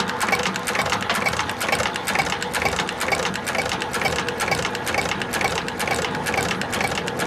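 A cobbler's industrial sewing machine stitching shoe leather in a rapid, even run of stitches over the hum of its motor.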